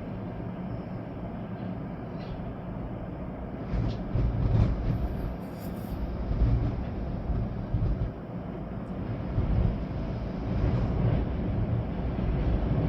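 Storm wind gusting with rain falling: a steady low rumble that swells in gusts several times, with wind buffeting the microphone.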